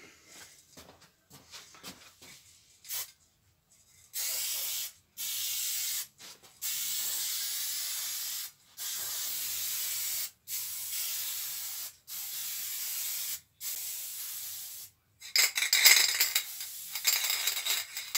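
Aerosol can of acid etch primer spraying in about eight short hissing bursts of one to two seconds each. Near the end the can is shaken, its mixing ball rattling loudly.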